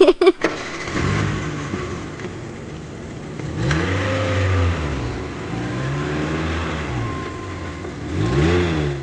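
Car engine revving and running, its pitch rising and falling several times, loudest about four seconds in and again near the end.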